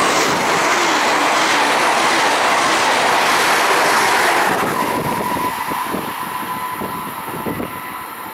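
Double-deck electric passenger train rushing past close by at speed, a loud rail and wind noise that falls away about four and a half seconds in. After that come a quieter rumble with a run of clacking wheel knocks and a steady high tone.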